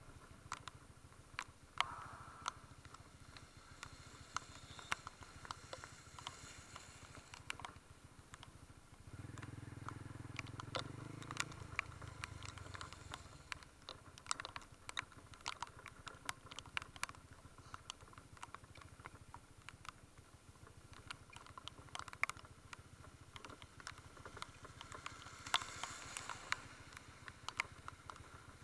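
Honda CB150 Invicta's single-cylinder engine running low under the wind, with many scattered ticks of raindrops striking the camera. The engine note swells louder for about three seconds near the middle.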